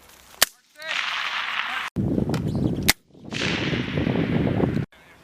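Two rifle shots about two and a half seconds apart, with a loud rushing noise between and after them that cuts in and out abruptly.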